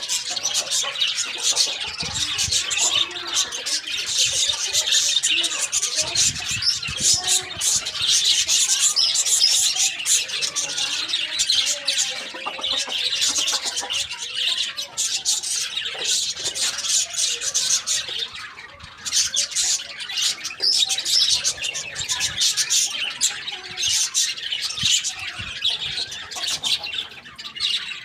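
A flock of birds chirping and squawking continuously, a dense overlapping chatter of short high calls.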